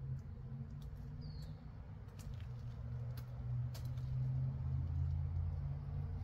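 A steady low hum with a few light clicks and a short, high, falling squeak about a second in.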